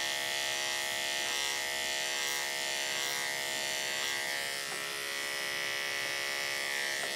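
Andis AGC2 two-speed dog grooming clippers fitted with a 10 blade, running with a steady buzz as they trim a Maltipoo's fur around its rear in short strokes.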